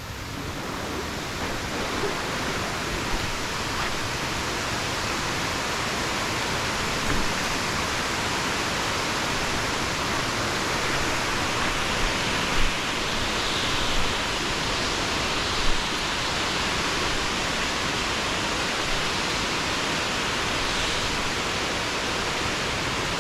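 Large waterfall rushing steadily, an even wash of falling water and spray, with a few brief louder knocks near the middle.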